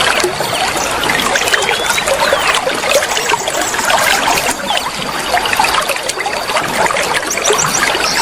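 Flowing water trickling and splashing steadily, a dense, unbroken burble.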